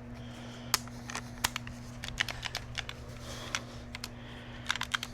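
Irregular sharp metallic clicks and clinks of a ratchet and socket being worked on the alternator's lower mounting bolt, over a steady low electrical hum.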